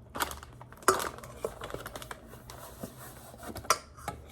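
Small kitchenware clatter: a measuring cup and bowl knocking and scraping as cornstarch is scooped and poured, with a few sharper taps, one about a second in and one near the end.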